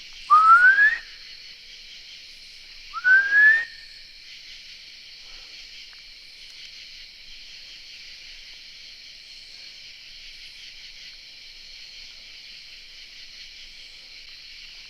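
A person whistles twice, each a short whistle that slides upward in pitch, the second a little shorter. A steady night chorus of crickets and katydids chirrs throughout.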